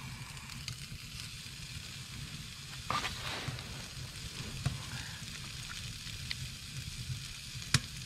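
Deer steaks sizzling in a frying pan on a wood stove. The sizzle jumps up suddenly about three seconds in as a second steak goes into the hot pan, then settles. A single sharp click comes near the end.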